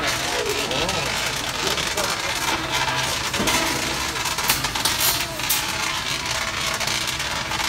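Antweight combat robots hitting each other in a small arena: a few sharp hits, the loudest about four and a half seconds in, over a steady din of crowd chatter.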